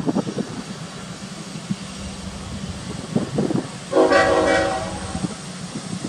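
Diesel freight locomotive's air horn sounding one short blast about four seconds in, several pitches at once, over a low rumble.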